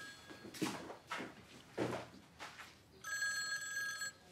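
Mobile phone ringing: an electronic ringtone of several steady tones that fades out just after the start and rings again for about a second about three seconds in. A few soft knocks fall between the rings.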